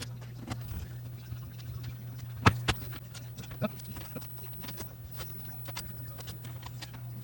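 Scattered small clicks and knocks of a PlayStation 5's parts and tools being handled during reassembly, with two louder clicks about two and a half seconds in, over a steady low hum.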